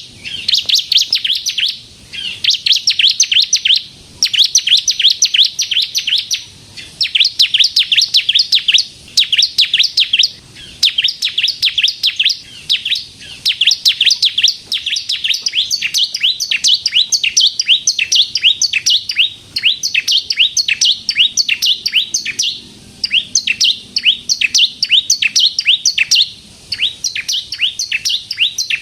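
Ciblek kristal (bar-winged prinia) singing continuously: rapid strings of sharp, high chirps in phrases of one to two seconds, separated by short breaks.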